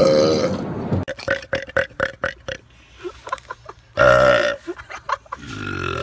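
A person burping loudly: one long belch right at the start and another, the loudest, about four seconds in, with short choppy sounds between.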